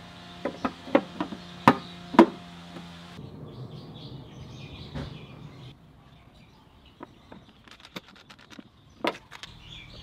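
Vespa LX horn cover being pushed and snapped into place on the front legshield: a quick run of sharp clicks and knocks, the loudest about two seconds in. Later come lighter ticks and taps as a screw is driven in with a screwdriver, with one firmer knock near the end.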